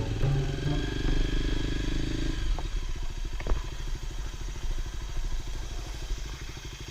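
Kawasaki KLX250 Final Edition's single-cylinder engine running; about two and a half seconds in its note drops to a low, evenly pulsing beat.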